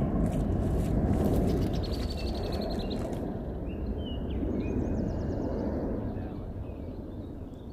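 Outdoor ambience: a steady low rushing noise with birds chirping several times. A run of faint clicks comes in the first three seconds.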